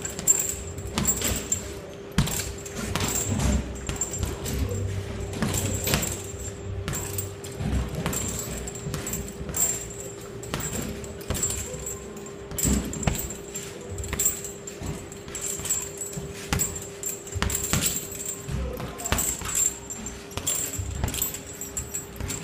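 Boxing gloves striking a leather teardrop heavy bag in quick, irregular combinations of punches, over a steady hum.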